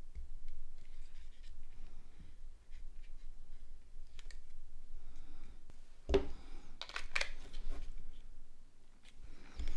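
Small plastic phone parts being handled: scattered clicks, scratches and rustling, with the crinkle of protective plastic film being peeled off the new shell. The busiest stretch is about six to seven and a half seconds in.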